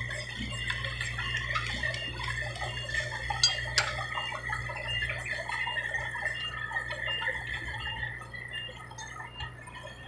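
Diesel dump truck engines running at low revs with a steady low rumble as a second loaded truck pulls up alongside. A steady high whine and a quick run of high ticks, about three a second, sit on top, with one sharp click about four seconds in.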